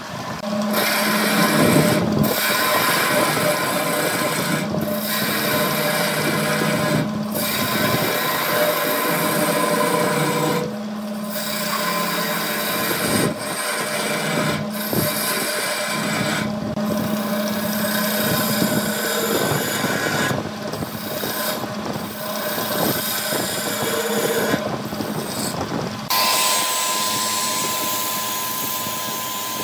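Power tools working wood, heard in a run of short clips: a steady motor hum under the noise of cutting or sanding, which changes at each cut. Near the end a different tool takes over with a steady higher whine.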